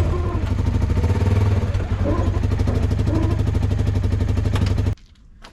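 Motor vehicle engine running steadily with a fast, even pulse. It cuts off abruptly about five seconds in, leaving a few faint clicks.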